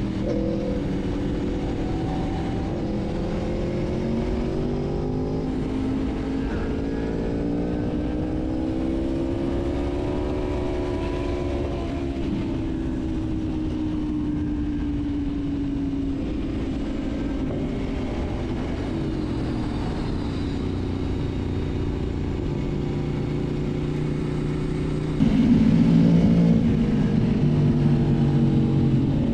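Aprilia Tuono V4 1100 Factory's V4 engine running at speed on a mountain road, its revs rising and falling over several seconds at a time through the bends. About 25 seconds in it suddenly gets louder.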